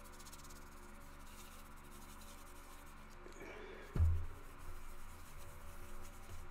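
Paper towel rubbing lightly and quickly over a painted plastic model aircraft part, buffing up its metal finish: a faint, even brushing. A dull low thump about four seconds in.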